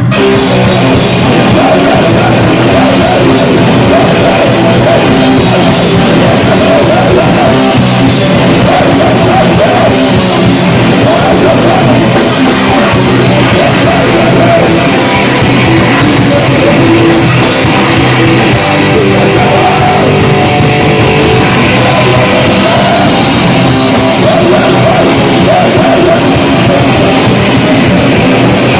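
Rock band playing a song live at full volume, with drum kit and electric guitar.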